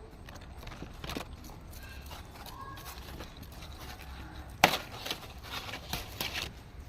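A few sharp knocks and taps: one about a second in, the loudest about four and a half seconds in, then a quick run of lighter ones.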